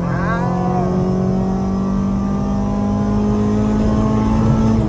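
Honda B16A DOHC VTEC four-cylinder engine heard from inside the cabin, pulling hard through a gear with the revs climbing slowly and steadily, through a Spoon N1 exhaust. The pitch drops at the very end as the next gear is taken.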